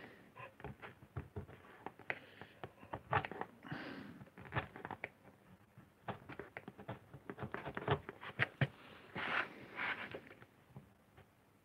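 Lino cutting gouge carving short strokes into a linoleum block: a rapid, irregular run of small scratchy scrapes and clicks.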